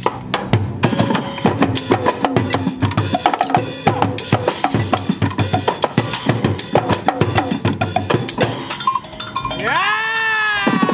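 Percussion ensemble drumming fast and hard on plastic buckets, drums, cymbals and cowbells, a dense run of interlocking hits. Near the end the hits thin out and a long pitched sound swells up and falls away.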